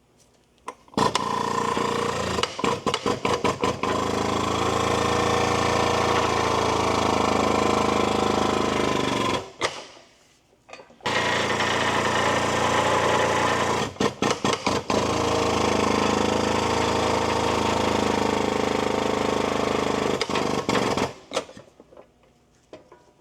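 Powered shop press pump running as a wheel hub is pressed into a steering knuckle. It starts with a few quick on-off bursts, runs steadily for about eight seconds, stops, then bursts again and runs another long stretch, cutting off about 21 seconds in.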